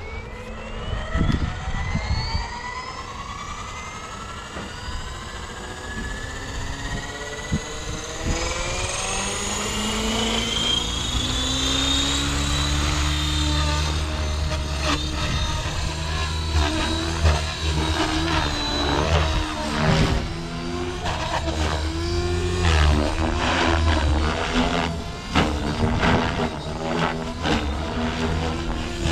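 Blade Fusion 550 electric R/C helicopter spooling up: the brushless motor's whine rises steadily in pitch over the first dozen seconds, then the main rotor's low chop sets in. It lifts off and flies, its pitch and loudness shifting as it manoeuvres.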